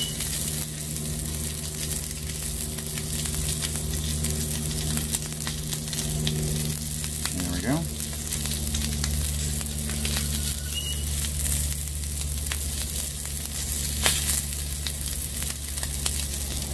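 Pork bratwurst meat, squeezed from its casing, frying on a hot flat-top griddle: a steady sizzling hiss with a low steady hum underneath.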